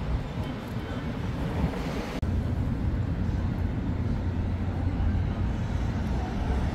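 City street ambience dominated by a steady low rumble of traffic. About two seconds in, the sound breaks off for an instant and comes back louder and deeper.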